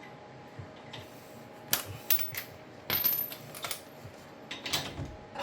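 Irregular metallic clicks and clinks of a steel lug nut being started by hand on a wheel stud, holding the brake rotor to the hub.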